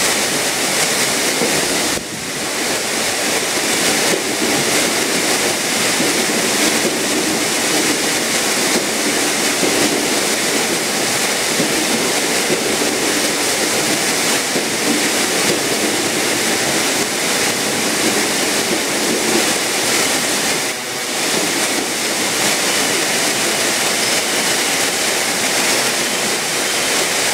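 Heavy tropical downpour, a dense steady hiss of rain on the tracks and platform roof, as a former JR East 205 series electric commuter train rolls in alongside the platform. The rain is the loudest sound throughout.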